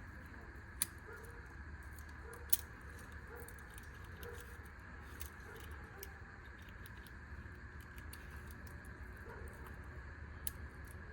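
A small keychain nail-clipper multi-tool being handled, its metal fold-out tools giving a few sharp clicks, about a second in, a couple of seconds later and near the end, over a steady low hum.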